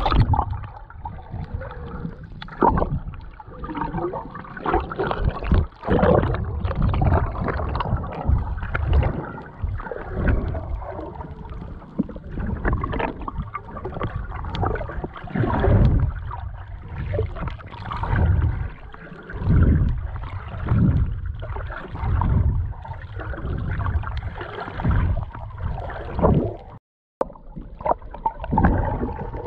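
Muffled underwater sound picked up by a submerged camera in its waterproof housing: water sloshing and gurgling past it in irregular swells every second or two. The sound cuts out completely for a moment near the end.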